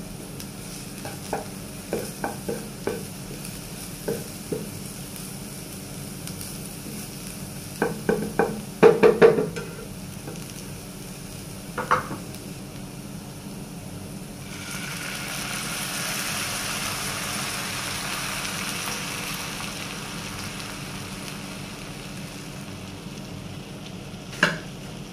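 Minced garlic sizzling in a nonstick frying pan as a spatula stirs it, tapping and scraping against the pan, with a flurry of louder knocks about a third of the way in. About halfway, cream goes into the hot pan and sets off a steady hiss that slowly dies away, then one more knock near the end.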